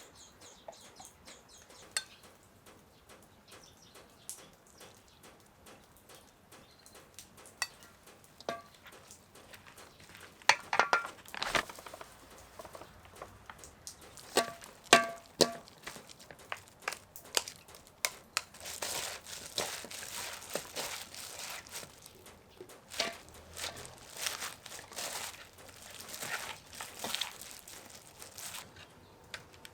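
Food-preparation handling sounds: scattered clicks and knocks, a few ringing clinks of dishware or pots in the middle, and longer stretches of rustling and crinkling near the end.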